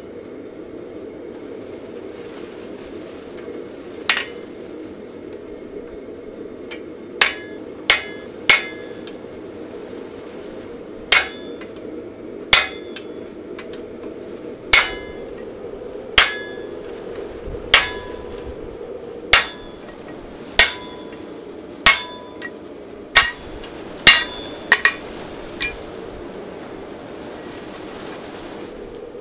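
Hammer blows on a hot-cut chisel held against a red-hot iron blade on a swage block, splitting the edge to take the steel core. There are about seventeen metallic strikes, spaced a second or two apart and each ringing briefly, over a steady low drone.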